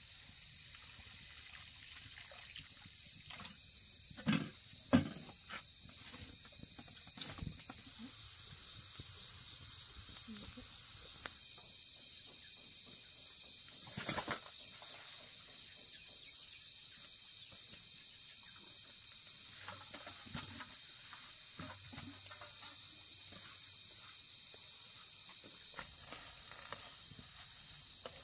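Steady, high-pitched insect chorus. A few sharp knocks stand out above it, two close together about four to five seconds in and a softer one near the middle.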